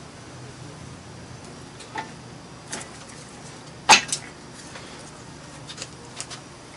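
A crankshaft being set down into the freshly lubed main bearings of a bare Jeep engine block: a few light metal clicks, then a sharp clunk about four seconds in as it lands, followed by a second knock and some small ticks as it is settled.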